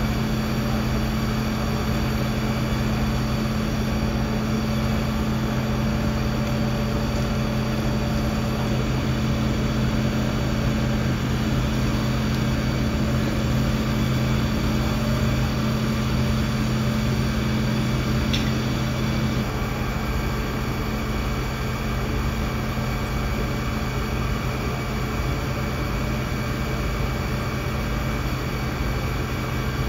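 Fire engine's diesel engine running steadily to drive its water pump while hoses are charged: a constant low drone with a steady hum.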